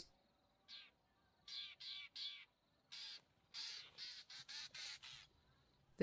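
Fork-tailed drongos giving a series of short, harsh warning calls in irregular groups, about a dozen in all. These are false alarms, given to make a foraging bird flee and leave its food behind.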